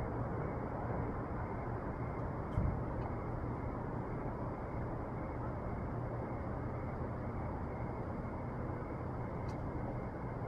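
Steady low background noise, with one soft knock about two and a half seconds in and a few faint clicks.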